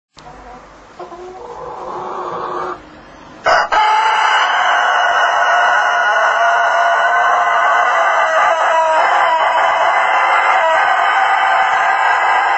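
Rooster crowing. A quieter rising call for the first three seconds, then after a short break a loud crow starts about three and a half seconds in and is held on, unbroken and unnaturally long.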